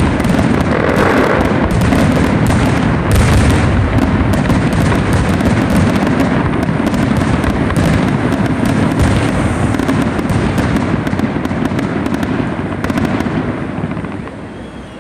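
Fireworks finale: a dense barrage of booming shells and crackling effects going off almost without a break, then thinning out and fading near the end.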